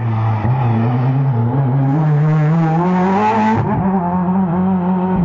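Rally car accelerating hard out of a tarmac hairpin, its engine note climbing steadily, then a sudden break a little over three and a half seconds in, after which the engine holds a steady note.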